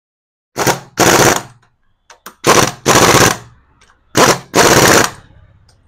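Power impact wrench running in the cylinder head cover bolts on a Bajaj Pulsar 220 engine: three times, a short blip of rapid rattling followed by a longer burst of about half a second.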